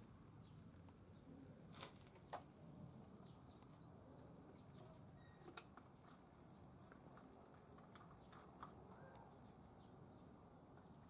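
Near silence: faint room tone with a few scattered light clicks.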